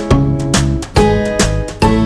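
Background music with a regular beat, a new chord struck about twice a second.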